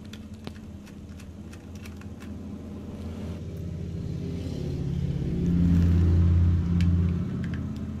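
Low motor-vehicle rumble that swells over several seconds, is loudest around six seconds in, then fades, as of a vehicle passing by. Faint small clicks of a screwdriver working screws out of a laptop hard-drive caddy are heard beneath it.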